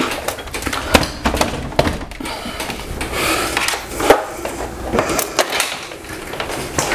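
A flat-screen TV being hooked onto its wall-mount bracket: a string of sharp knocks and clunks with scraping and rubbing in between as it is settled into place.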